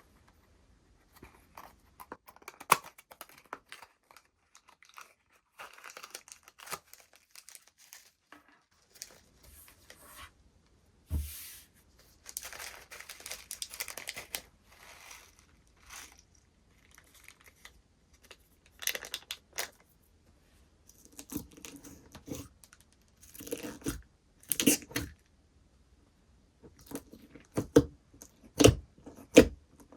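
Slime being played with by hand: crackling, crinkling and stretching-tearing sounds, with a series of louder, sharper pops and squelches in the second half.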